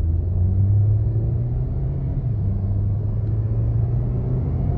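Suzuki Swift Sport's 1.4-litre turbocharged four-cylinder engine running steadily, a low even hum that picks up slightly about half a second in and then holds.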